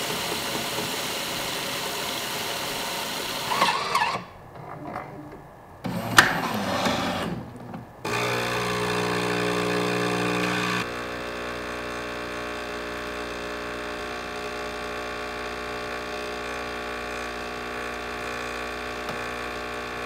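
Jura S8 super-automatic espresso machine making a cappuccino. First the milk hisses steadily as it is frothed through the fine foam frother. After a short lull with a click, the grinder runs loudly for about three seconds. Then the pump hums steadily through the pulse extraction as the coffee pours onto the milk.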